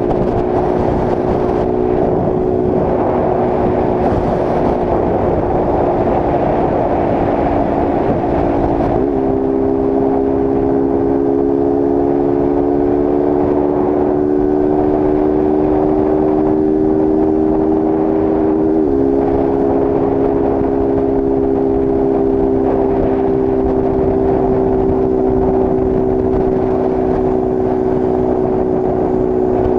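Honda CG Start 160's single-cylinder four-stroke engine, run with its air filter removed, pulling hard at highway speed. Its note rises slowly, with a sudden small drop in pitch twice, under steady wind and road rush.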